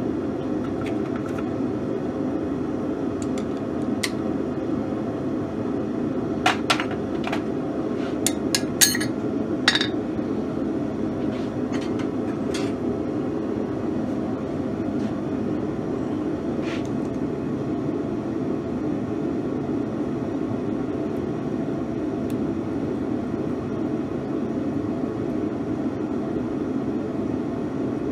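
A forge running with a steady rushing noise, with a handful of sharp metal clinks and knocks about 6 to 10 seconds in, as steel tools are set down on the anvil.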